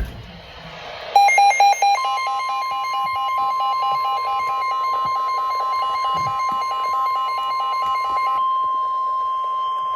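NOAA Weather Radio warning alarm tone: a steady 1050 Hz tone that starts about two seconds in, signalling that a warning message is about to be read. It is layered with rapid, repeating electronic beeping that stops about eight seconds in, after which a second, higher tone joins.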